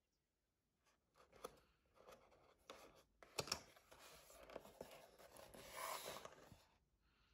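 Cardboard takeaway box being handled and its lid opened: faint scrapes, taps and rustling of cardboard starting about a second in, with a longer rustle near the end.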